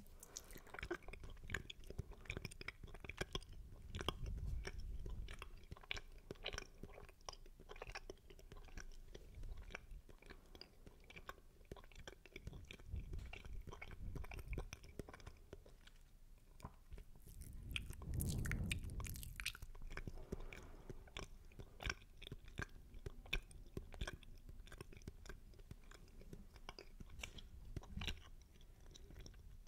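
Wet, spitty mouth sounds made right at the microphone: rapid sharp clicks and smacks of lips and tongue, as in 'spit painting' ASMR. Two louder, low, muffled swells come through, about four seconds in and around eighteen seconds in.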